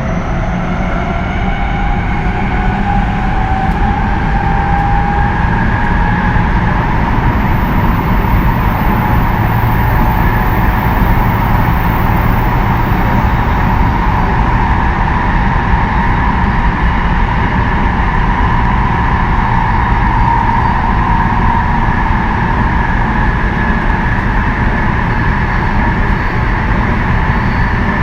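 Tsukuba Express 2000 series electric train running, with the traction motors whining over the steady rumble of the wheels on the rails. The whine rises in pitch over the first few seconds as the train gathers speed, then holds steady at running speed.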